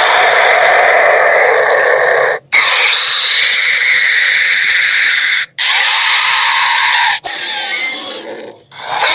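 A string of loud, harsh, animal-like creature sound effects for a robot dinosaur, each lasting a second and a half to three seconds and cut off abruptly before the next one starts, about four in a row.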